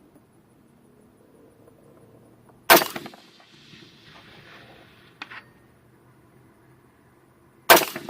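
Two rifle shots from a 16-inch Bushmaster AR-15 carbine firing 55-grain .223, about five seconds apart. Between them, about two and a half seconds after the first shot, comes a faint, distant ping: the bullet striking the steel silhouette target 600 yards away.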